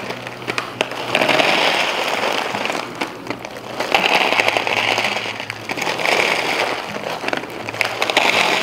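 Frozen mixed vegetables poured from a bag into plastic meal containers, the hard frozen pieces rattling and clattering in several separate pours.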